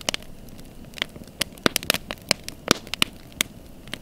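Wood campfire crackling, with irregular sharp pops over a faint hiss of burning.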